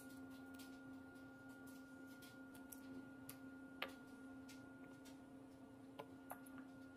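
Near silence: a faint steady hum, with a few light clicks and taps as a ceramic soap dispenser and a plastic bottle are handled on a granite counter, the sharpest a little under four seconds in.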